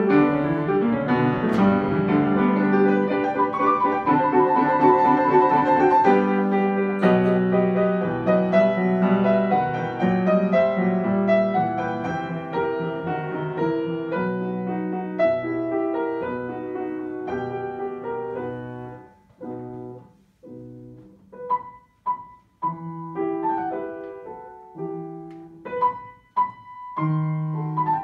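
Grand piano played four hands as a duet: a dense run of notes and chords, thinning about two-thirds through into separate, detached chords with short gaps between them.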